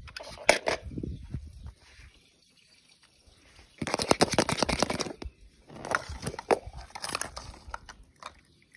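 Handling noise of small toy cars and hard plastic: clicks and rattles as toy cars knock in a plastic bowl and a plastic egg is handled, in three bursts, at the start, about four seconds in, and again around six to seven seconds in.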